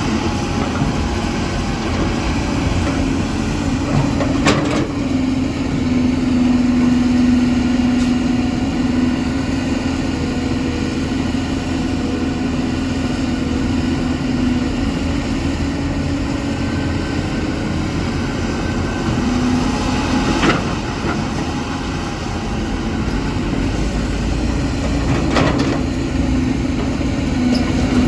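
Caterpillar 320 hydraulic excavator working: its diesel engine runs steadily with a hum that swells in stretches. Three sharp knocks come several seconds apart.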